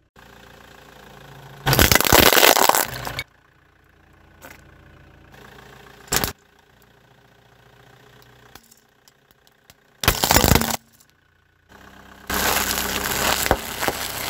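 Car tyre rolling over and crushing objects: four loud crunching, cracking bursts a few seconds apart, the last and longest as packets of crisps are flattened, with the car's engine idling quietly between them.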